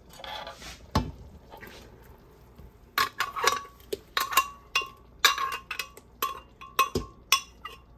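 A metal spoon clinking against a cooking pot while stirring, each strike ringing briefly. There is one clink about a second in, then a quick run of clinks from about three seconds on.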